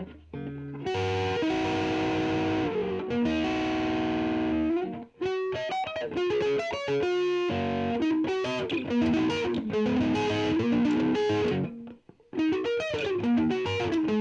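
Electric guitar with P90 pickups in the middle position, played through a 40-watt solid-state amp's overdrive channel with the drive near noon: crunchy distorted chords and riffs, with short breaks about 5 seconds and 12 seconds in.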